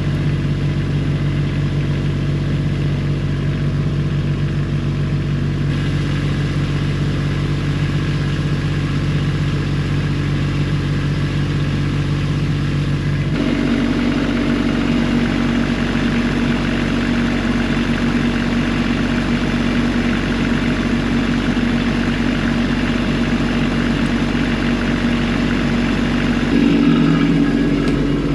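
Truck engine running steadily. About halfway through, its pitch steps up as the engine speeds up, and near the end it rises briefly once more.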